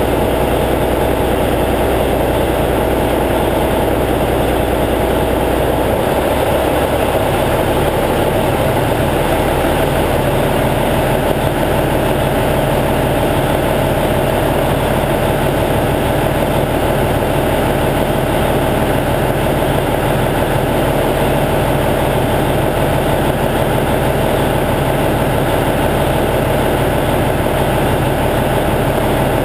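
Cummins N14 inline-six diesel in a semi-truck idling steadily while warming up after a cold start in near-freezing weather. About six seconds in, the deepest part of the engine note shifts up and then holds.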